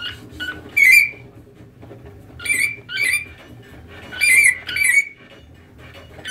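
African grey parrot giving short, shrill whistled calls, one alone and then two pairs about half a second apart.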